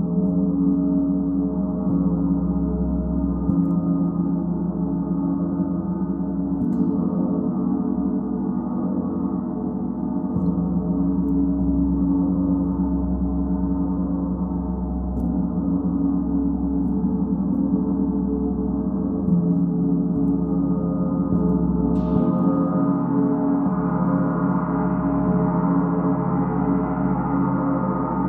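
Large hanging gong played continuously with a soft felt mallet: a steady, dense wash of low ringing tones and overtones. About two-thirds of the way through, a stronger stroke adds a brighter, higher shimmer.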